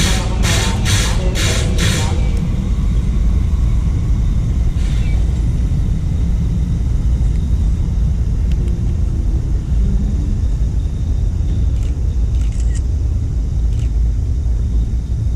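Steam locomotive turning on a turntable, hissing in regular puffs about twice a second that stop about two seconds in, then a steady low rumble.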